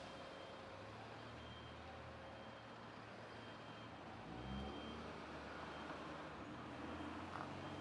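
Faint, steady low drone of the approaching EMD SD40 diesel locomotives, with a grade crossing's electronic bell giving a short high ding about once a second.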